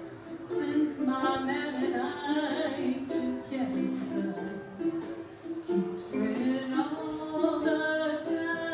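A person singing a melody while strumming a ukulele.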